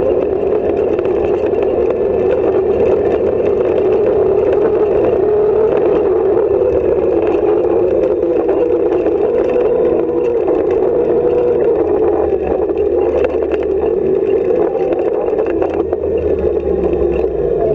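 Off-road rally car's engine running hard at speed, heard from inside the stripped, roll-caged cabin, with many short knocks and rattles from the car shaking over a rough dirt track.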